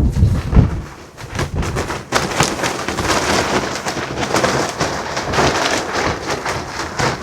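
Gusty wind buffeting the microphone, with heavy low rumbles in the first second, then a dense hiss full of rapid crackles as loose satin clothing flaps and rustles in the wind.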